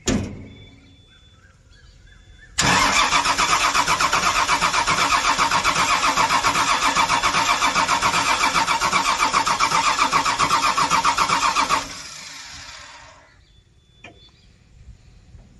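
Komatsu PC210-8 excavator's diesel engine cranked on the starter for about nine seconds, a fast even pulsing that stops suddenly without the engine catching: the engine will not start.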